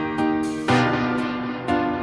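Instrumental background music: sustained keyboard chords, with new notes struck a few times.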